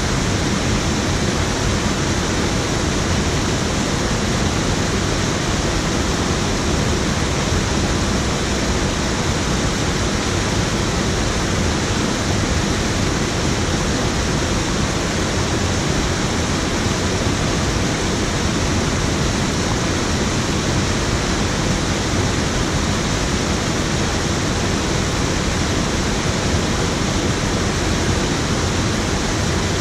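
Water pouring over a low river weir into the pool below: a steady, even rushing.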